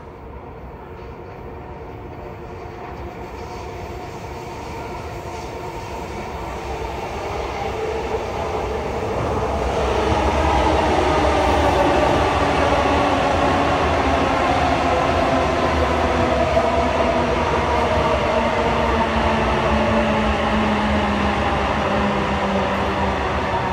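Sydney Trains double-deck electric train passing on the viaduct track. It grows steadily louder over the first ten seconds or so, then holds steady as the carriages go by: a whine of traction motors over the rumble of wheels on rail.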